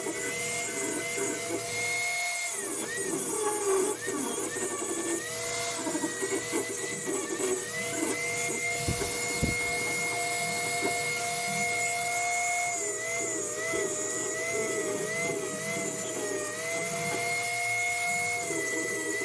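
Electric power tool motor running with a steady high whine, its pitch sagging and recovering several times as it is put under load.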